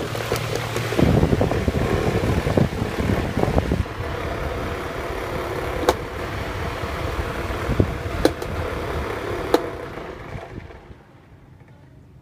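Three-blade desk fan running, its airflow buffeting the microphone, with a few sharp ticks. The sound drops suddenly to a faint hum near the end.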